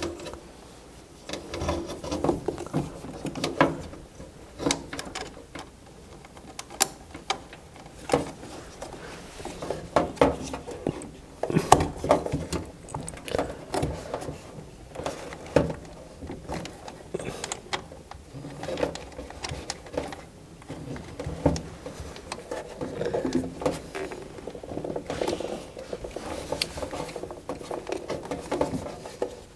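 Irregular clicks, taps and knocks of tools and metal furnace parts being handled and fitted, with a light rustle between them.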